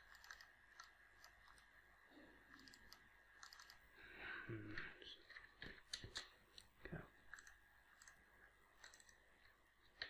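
Faint, scattered clicks of a computer mouse, a few each second in places, over a faint steady electrical whine.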